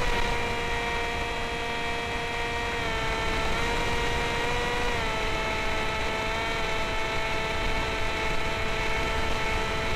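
Electric motor and pusher propeller of a Sky Shadow flying wing whining steadily in flight, heard from the onboard camera, with small steps down in pitch about three and five seconds in. A low rush of wind noise lies underneath.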